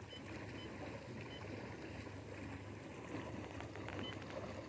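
Quiet ambience on a boat sitting on calm lake water: a faint steady low hum under a light wash of noise, with a few short, faint high peeps.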